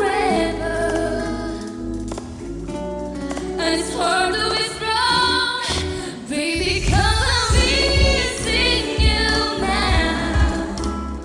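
A woman singing over backing music, her voice bending and holding notes; a heavy bass beat comes in about halfway through.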